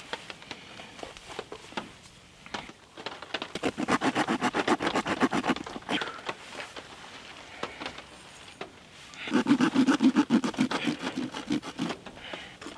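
A knife sawing into a softshell turtle carcass in quick, short, rapidly repeated strokes, in two bouts of a few seconds each: one about a quarter of the way in, the other a little past the middle.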